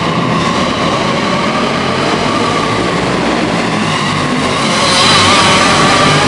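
Several racing kart engines running together at speed, a dense din with a wavering high whine, inside a metal-sided arena building. It grows louder about five seconds in as karts pass close.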